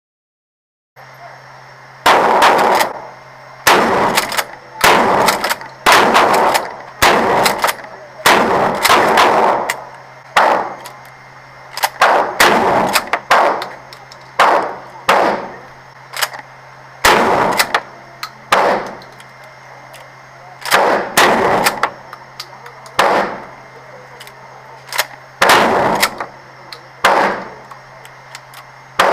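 Mossberg Maverick 88 pump-action shotgun fired about twenty times during combat-loading practice, the shots mostly a second or so apart with a few longer pauses. Each shot is sharp and rings out briefly after.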